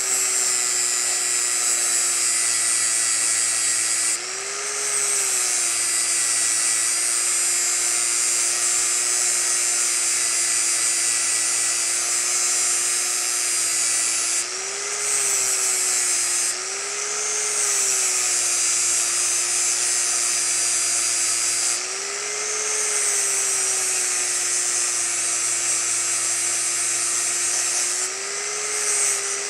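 Electric angle grinder with an abrasive disc grinding down the steel side plate of a Browning 1919 receiver, blending the riveted plate flush: a steady motor whine under a hiss of grinding. About five times the disc lifts off the steel, the hiss drops out and the motor speeds up briefly, then settles back as it bites again.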